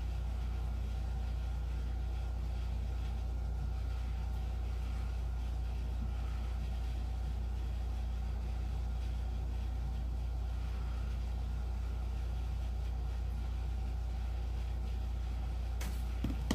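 A steady deep hum or rumble with no change in level, with a few light clicks just before the end.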